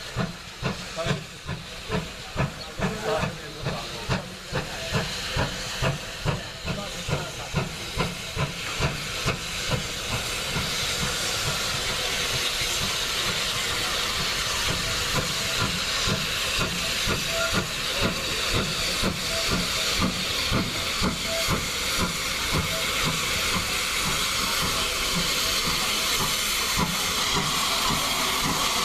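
GWR 2884-class 2-8-0 steam locomotive No. 3850 approaching with a train, its chimney exhaust beating nearly twice a second. The beats then merge into a louder, steadier rush of steam and running noise as it draws near.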